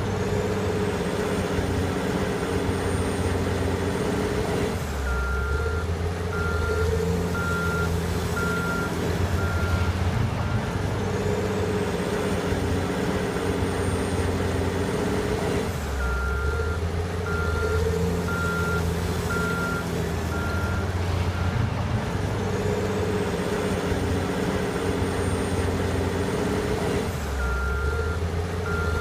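Caterpillar 980 wheel loader diesel engines working steadily under load, with a backup alarm beeping about once a second in three spells as a loader reverses. Between the spells a high whine rises, holds and drops away as the loader drives forward again.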